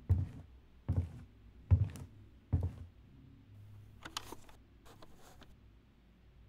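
Four dull, low thuds at a steady, slow pace, a little under a second apart, followed by two short, fainter rustling scrapes.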